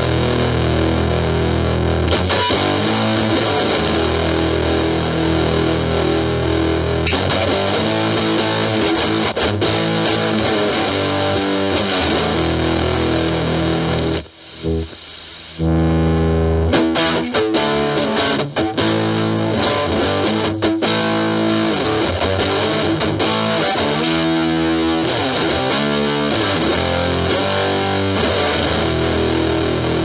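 Electric guitar (Stratocaster with single-coil pickups) played through an Electro-Harmonix Germanium 4 Big Muff Pi, its overdrive and distortion sides both on, into a Marshall Valvestate amp's clean channel: a thick, fuzzy distorted tone with held chords and notes. The sound drops away for about a second halfway through, then comes back in.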